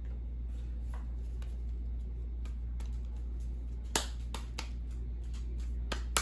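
Sharp clicks and taps from a corn tortilla press being worked. A few louder clacks come about four seconds in and again near the end, over a steady low hum.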